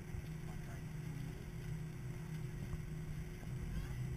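Jet airliner cabin noise while taxiing on the ground: the engines running at low power, heard through the fuselage as a steady low hum with a faint steady tone above it.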